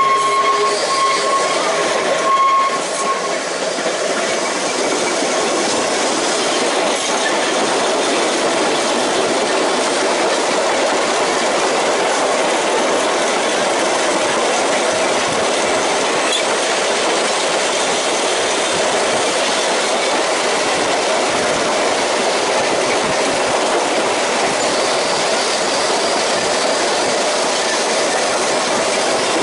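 Narrow-gauge electric tramcars running along the track: a steady rumble and rattle of wheels on rails. A high wheel squeal fades out about three seconds in.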